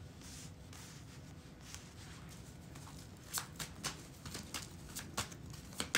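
A deck of tarot cards shuffled by hand: soft sliding at first, then a run of quick, crisp card snaps from about halfway.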